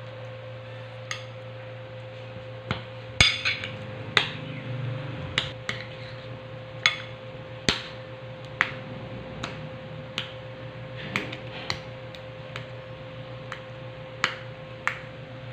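Metal spoon clinking and scraping against a ceramic bowl as avocado is mashed and stirred into evaporated milk, in irregular knocks about once or twice a second. A steady hum runs underneath.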